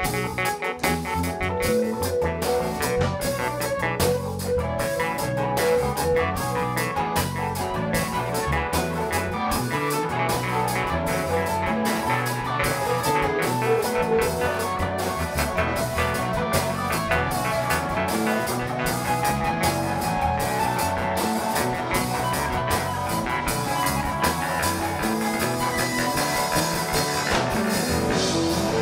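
Live rock band playing an instrumental passage: electric guitars and keyboards over a drum kit keeping a steady beat.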